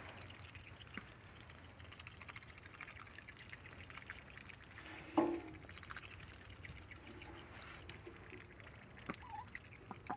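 Ducks dabbling and drinking in shallow water on the floor: faint, wet, scattered clicking and dripping of their bills in the water, with one louder short sound about five seconds in.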